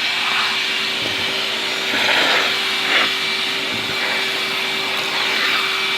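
Numatic Henry vacuum cleaner running steadily, sucking at a clogged vacuum's bin and filter housing to clear the blockage. There is a constant motor hum and rushing air, with brief surges of airflow about two and three seconds in.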